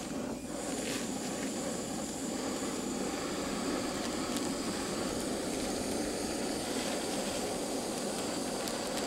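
Snow Peak GigaPower canister stove burning at full flame, a steady rushing noise, under a small saucepan of water at the boil.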